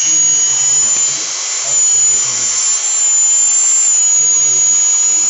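Dremel 3000 rotary tool running at high speed with a steady high-pitched motor whine, its newly fitted armature spinning.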